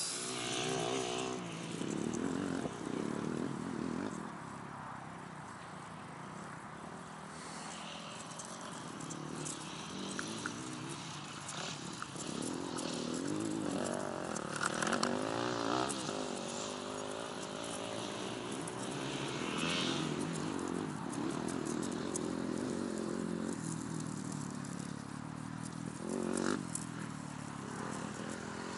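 Outdoor background with a distant engine running, its pitch wavering up and down, and a few light handling knocks.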